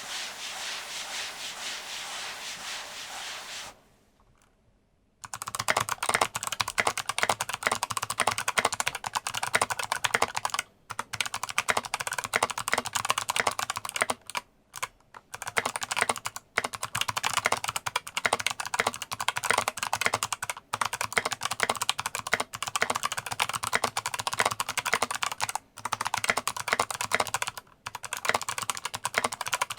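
Typing on a mechanical keyboard with Kailh Box White clicky switches: fast runs of sharp key clicks with brief pauses between them. It opens with a few seconds of steady rushing noise, then a short lull before the typing starts.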